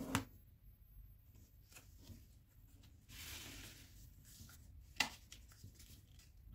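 Origami paper being folded and creased by hand: soft paper rustling, a brief sliding hiss about three seconds in, and two sharp taps, one at the start and one about five seconds in.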